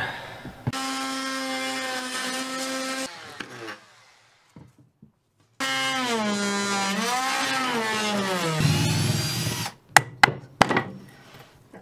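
Corded power saw cutting wood: a steady motor whine that sags and wavers in pitch as the blade bites. It runs in two spells with a short gap between. A few sharp knocks and clatters follow as the cut wood is worked loose.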